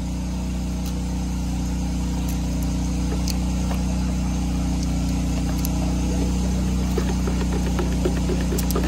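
An engine running steadily at idle, a constant low hum. Light clicks join it near the end.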